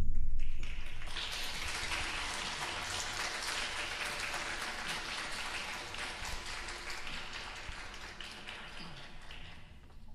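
Audience applauding, loudest at first and dying away near the end.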